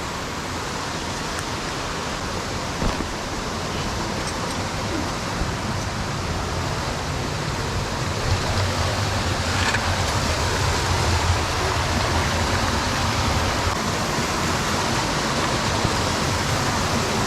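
Rushing water of a storm-swollen canyon creek tumbling over boulders and small cascades: a steady, even rush that grows slightly louder.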